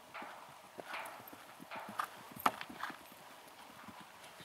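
Hoofbeats of a horse cantering across grass turf, irregular dull thuds, with one sharp click about two and a half seconds in.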